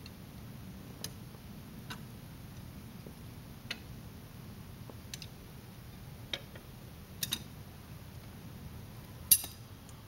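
Scattered sharp metal clicks and clinks of steel hand tools being worked on a hydraulic fitting, roughly one a second and uneven, with the loudest clank about nine seconds in.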